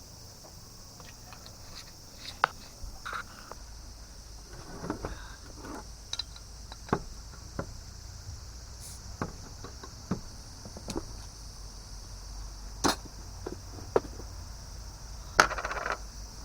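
Scattered clicks and knocks of small objects being handled and set down, the loudest a sharp knock about fifteen seconds in, over a steady high chirring of insects.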